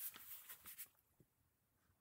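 Pages of a paper pattern book being leafed through, a soft rustle of paper lasting about a second.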